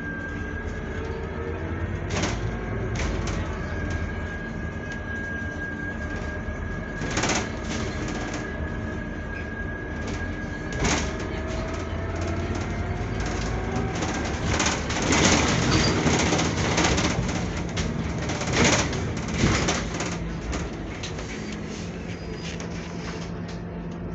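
Interior ride noise of a Scania Citywide CNG city bus under way: the gas engine and automatic gearbox running with a steady high whine and a whine that slowly rises in pitch about halfway through. Several sharp knocks and rattles from the body and fittings over bumps, with a louder stretch of rattling and road noise in the middle.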